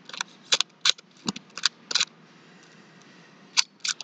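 Plastic tiles of a handheld 15 sliding puzzle clicking as they are pushed from square to square. There is a quick run of clicks in the first two seconds, a pause, then one more click near the end.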